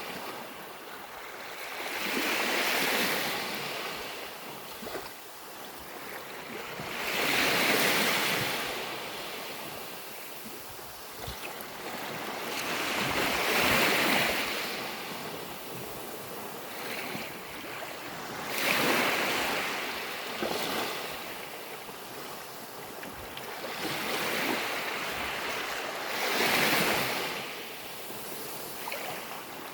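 Sea waves breaking on a beach, each one swelling in and washing back, with a new wave surging about every five to six seconds.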